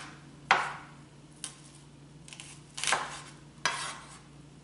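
Chef's knife slicing an onion thinly on a plastic cutting board: four sharp knife strokes against the board, roughly a second apart, the second one faint.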